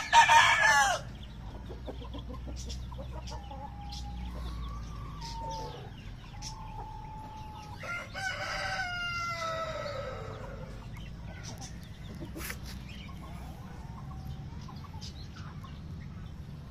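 Pakistani Aseel chickens calling: a loud short call right at the start, soft clucking calls a few seconds in, then a rooster crowing once about eight seconds in, a drawn-out crow that falls in pitch at the end.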